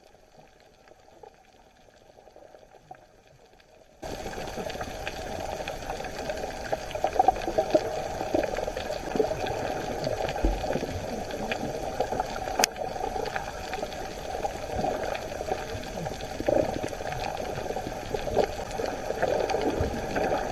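Muffled underwater water noise with a dense bubbling crackle, faint for the first few seconds, then stepping up suddenly to a steady, louder level about four seconds in. A single sharp click comes near the end.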